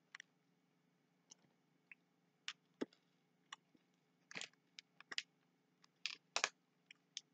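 Faint, scattered clicks and small crackles of a person eating Skittles from a bag, with a few louder ones bunched together about four to six and a half seconds in.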